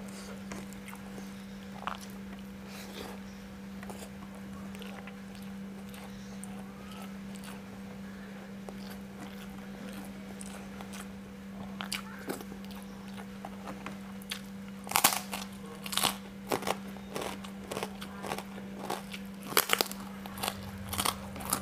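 Close-up mouth sounds of eating: soft chewing at first, then, about two thirds of the way in, a run of loud, crisp crunches as a kerupuk opak (cassava cracker) is bitten and chewed. A steady low hum runs underneath.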